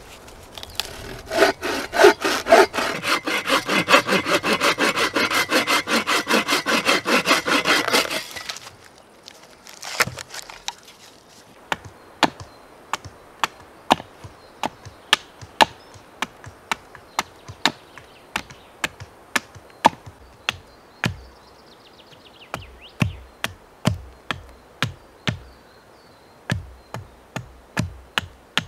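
A hand saw cutting through wood in fast, even strokes for about seven seconds, then stopping. After that, a hatchet's back knocking a wooden stake down in single sharp blows about a second apart, the later blows duller and thuddier.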